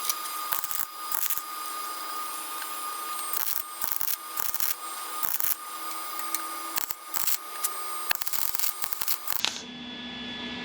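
Welding arc crackling and popping irregularly as a new steel patch is welded into a car's bulkhead; it stops abruptly about nine seconds in.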